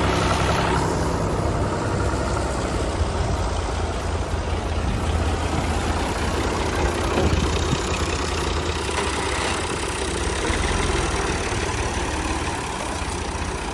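Combine harvester's diesel engine and machinery running steadily, a constant low hum under a broad mechanical noise.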